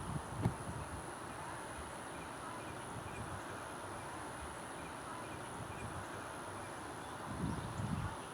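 Outdoor natural ambience: a steady hiss with wind buffeting the microphone about half a second in and again near the end, faint short chirps from small birds or insects, and a thin high steady whine throughout.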